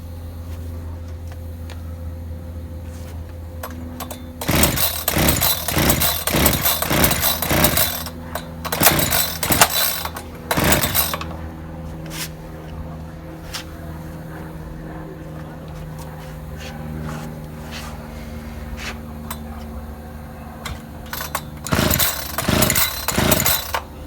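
Echo chainsaw being pull-started without catching: several rope pulls, each cranking the small two-stroke engine through a quick run of rasping strokes. There are three pulls in the first half and one more near the end. The engine won't run, which the mechanic suspects is flooding from too much fuel.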